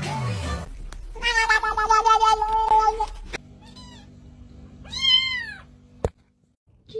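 A kitten mewing twice, short high meows that rise and fall, followed by a single sharp knock as it bonks its head. Before that, a loud, wavering cry lasts about two seconds.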